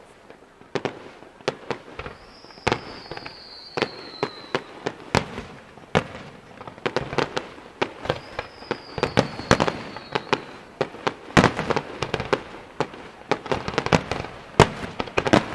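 Aerial fireworks display: an irregular string of sharp bangs from bursting shells, growing denser in the last few seconds. Twice a high whistle glides down in pitch for about two seconds.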